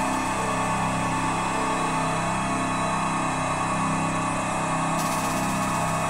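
Dense, steady ambient drone of many held tones layered from low to high, mechanical-sounding. A faint high hiss enters about five seconds in.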